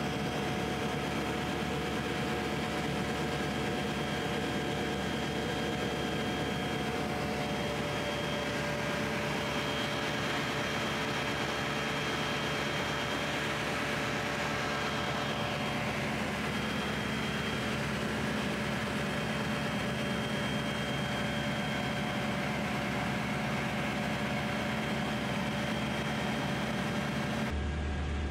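Steady drone of a DynAero MCR01 ultralight's piston engine and propeller in cruise, heard inside the cabin over a constant rush of air. Shortly before the end the sound turns deeper and duller.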